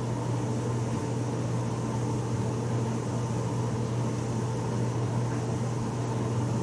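A steady low hum over an even whirring noise, unchanging throughout.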